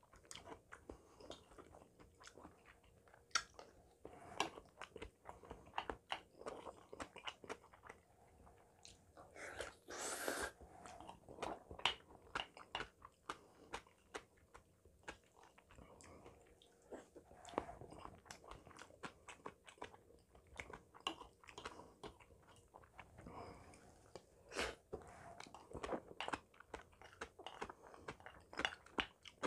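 Close-miked eating sounds of a man eating Spam curry rice: soft, irregular chewing and mouth clicks, with one longer airy burst about ten seconds in.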